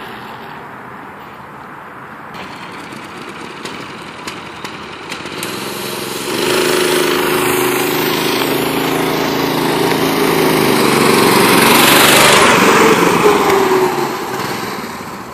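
Harbor Freight Predator 6.5 hp single-cylinder engine (a Honda GX160 clone) on an old three-wheeler, running under throttle as it is ridden. It grows louder from about halfway through, is loudest late on as it passes close, then fades as it pulls away.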